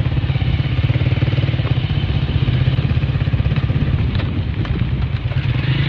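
Motorcycle engine running steadily with a rapid, even low pulse, as when riding at a constant speed.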